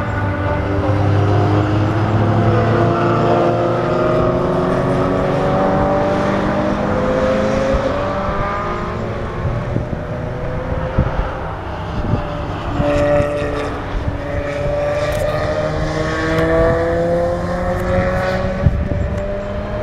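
Race car engines accelerating on a circuit, their pitch rising in two long pulls as cars come through the bend and down the straight, over a steady low hum. A few sharp knocks sound in the second half.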